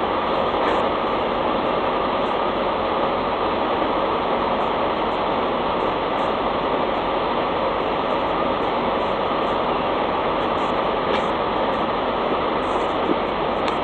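Steady, even mechanical running noise from machinery, with no change in level.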